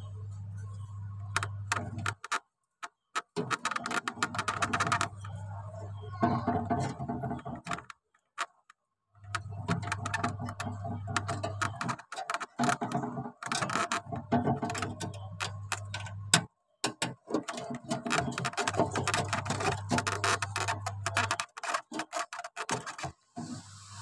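Irregular small clicks and light metallic taps from copper refrigerator evaporator tubing being handled and bent, over a low steady hum that drops out several times.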